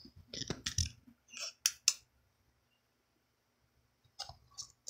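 Scattered sharp clicks and taps from handling, with about two seconds of near silence in the middle before more clicks near the end.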